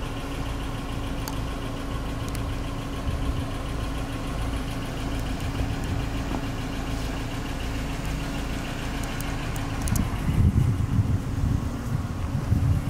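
Car engine idling with a steady hum. About ten seconds in the hum fades and uneven low rumbling takes over.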